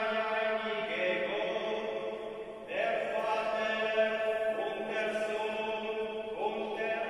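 Slow liturgical chant at Mass: long sung notes that change pitch every one to two seconds, over a steady low drone.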